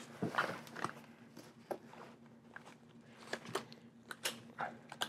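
Handling noise from a backpack compression strap being worked over a rifle: scattered soft clicks and rustles of webbing and buckle against the pack and gun.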